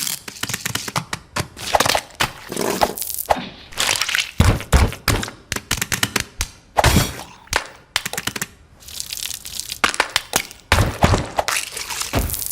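A rapid, irregular string of cracks, thuds and crunches, with short gaps between clusters.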